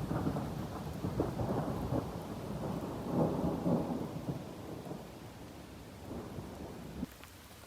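A low rumble of thunder over steady rain, slowly fading and dropping away about seven seconds in.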